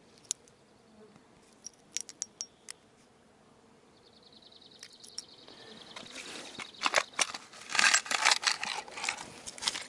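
Small metal clicks of fishing tackle being handled: a spinner lure, treble hook and leader clasp. There are a few isolated clicks in the first three seconds, then a denser, louder run of clicks, rattles and grass rustling over the last four seconds as a small plastic tackle box is handled.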